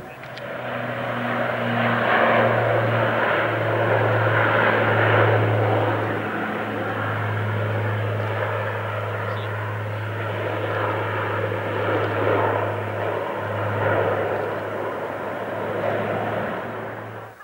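Large aircraft's engines running at high power: a loud roar over a steady low drone, cutting off suddenly near the end.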